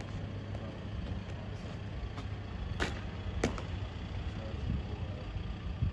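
Two sharp knocks about half a second apart, a guardsman's drill boots striking the ground as he marches and halts, over a steady low rumble.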